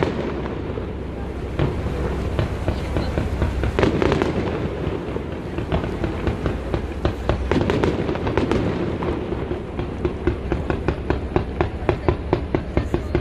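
Fireworks going off: a string of sharp bangs and crackles over a low rumble, turning into a rapid, even series of cracks about three or four a second in the last few seconds.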